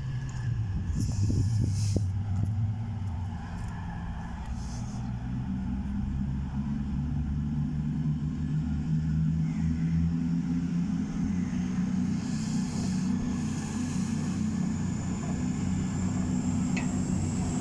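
CrossCountry Voyager diesel-electric multiple unit pulling away, its underfloor diesel engines running with a low drone that climbs gently in pitch as the train gathers speed. A thin high whine joins in for the last few seconds as the train draws near.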